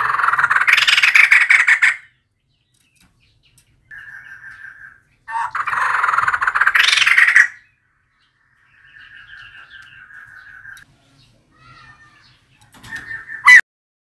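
Female white-crested laughingthrush calling: two loud, harsh chattering bursts of about two seconds each, with softer trilling notes between them and a sharp, loud sound near the end.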